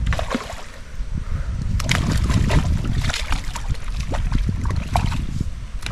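Water splashing in a creek as a hooked black bream (sooty grunter) is fought to the bank, with irregular sharp splashes over a steady low rumble on the microphone.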